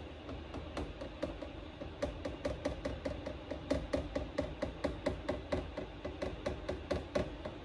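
Large jug of motor oil glugging as it is poured through a funnel into the engine's oil filler. The gulps come in a quick, even run, sparse at first and then about five a second from about two seconds in, stopping just before the end.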